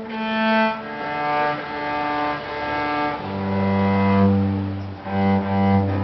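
Cello bowed in slow, held notes that change every second or so. About three seconds in it drops to a strong low note, held with a brief break near the end.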